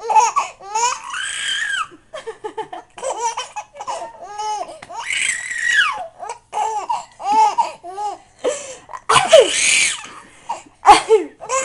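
A baby laughing hard in repeated short bursts of giggles and belly laughs. Two loud, sharp bursts, about nine and eleven seconds in, are an adult's faked coughs that set her off again.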